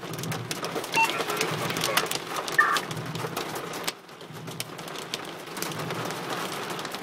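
Hail and rain pelting a car's roof and windshield, heard from inside the car as a dense patter of sharp hailstone ticks over the rush of rain. The patter dips briefly about four seconds in.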